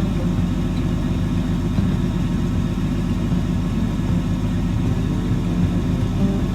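A heavy engine running steadily, a low, even rumble with no change in speed.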